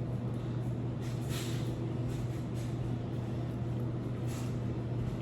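Steady low hum that does not change, with a few faint, soft eating noises about a second in and again near the end.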